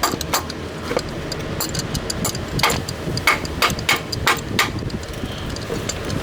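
A hammer tapping a keyed part onto the crankshaft nose of a Chevy LT1, about ten light blows, with a quicker run of them about halfway through, to start it onto the crank before it is drawn on with the install tool.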